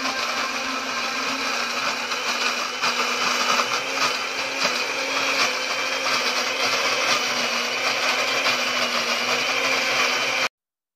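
Electric countertop blender running steadily, grinding a thick red chili spice paste. The motor sound cuts off abruptly near the end.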